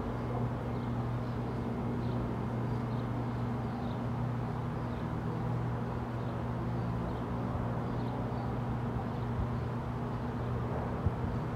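A steady low hum over a bed of outdoor noise, with faint bird chirps now and then.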